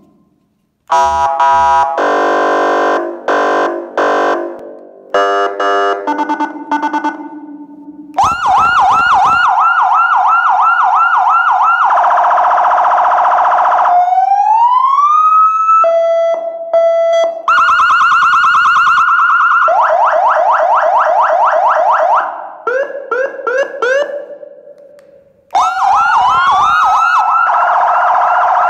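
Aosen Q7 electronic siren running through its tone patterns. It starts with pulsed horn-like blasts and beeps, then plays fast repeated yelp sweeps, a slow rising wail, short beeps and more fast warbling sweeps.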